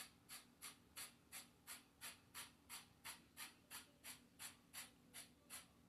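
Faint, even scratchy ticks, about three a second, over a low steady hum.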